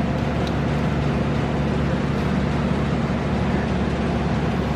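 Steady mechanical drone with a low hum, as from a motor or fan running, unchanging throughout.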